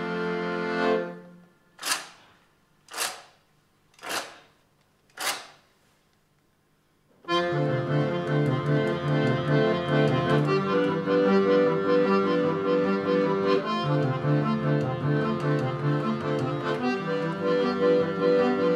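Piano accordion holding a chord that cuts off about a second in, followed by four sharp knocks about a second apart and a brief silence. Then the accordion and double bass come in together with a rhythmic tune.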